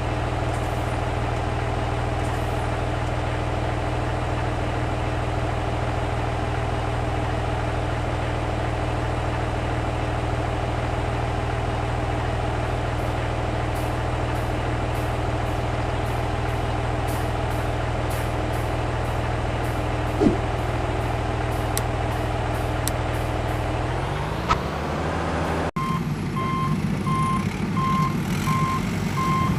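A heavy diesel vehicle engine runs steadily, with a single knock about two-thirds of the way through. Near the end it revs up, cuts off, and a reversing beeper starts sounding in a steady on-off rhythm.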